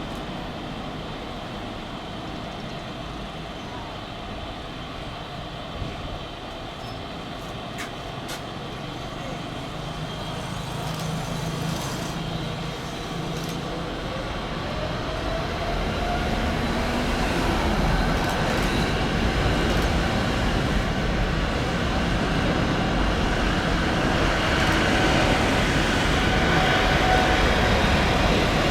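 Jet airliner approaching, its engine noise growing steadily louder, with an engine whine that slides in pitch through the second half.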